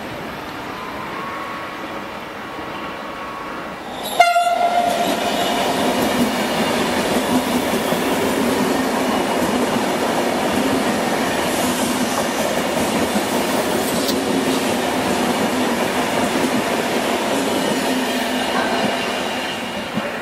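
Alstom AGV high-speed train passing through a station: a steady rush of wheels on rail with a low hum, easing off near the end. About four seconds in, the sound jumps abruptly louder with a brief horn note.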